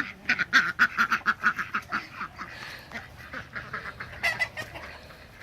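Chickens squawking in a rapid run of short calls, about five a second, as a bird is chased to be caught. The calls are loudest for the first couple of seconds and then taper off, with one more short squawk about four seconds in.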